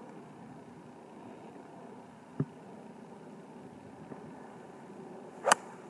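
An iron club striking a golf ball on a full swing: one sharp crack near the end. A softer knock comes about two seconds in, over steady low background noise.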